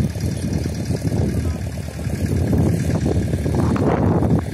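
Boat engine running steadily, a low rumble.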